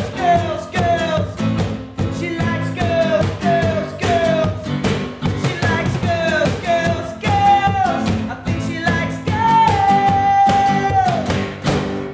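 Acoustic pop-rock performance: a male lead vocal over strummed acoustic guitar and a steady cajon beat. Near the end the singer holds one long note before the music stops.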